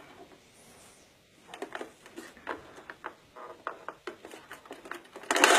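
Light, irregular plastic clicking from a See 'n Say talking toy as its centre pointer is turned by hand and its pull lever is worked, about three to five clicks a second after a quiet first second and a half.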